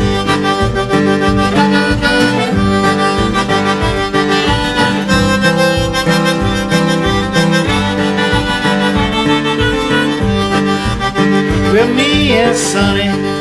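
Acoustic blues played on harmonica over a steady, rhythmic acoustic guitar, with a few bent, sliding notes near the end.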